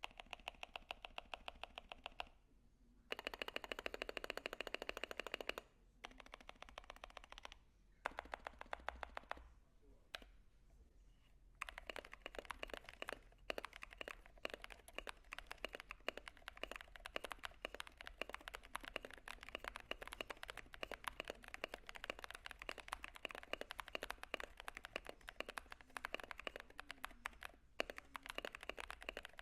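Typing on an Akko ACR59 acrylic-cased mechanical keyboard: rapid keystroke clacks in short bursts with brief pauses, then continuous typing from about twelve seconds in.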